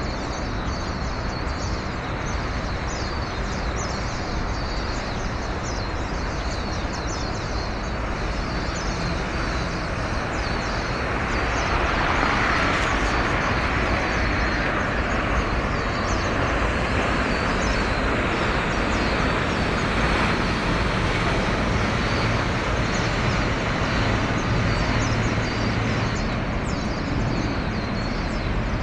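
Steady outdoor rumble and hiss with faint high ticks; the hiss swells about a third of the way in and stays louder.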